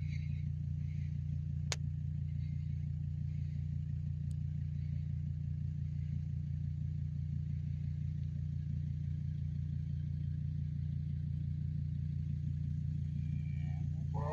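Steady low drone of an idling vehicle engine, with one sharp click about two seconds in.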